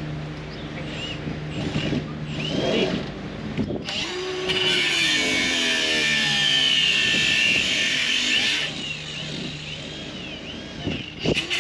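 Handheld power tool working on the bolted wall boards of a barn, running under load. After a few short runs it gives a loud, high whine for about four seconds, from about four seconds in.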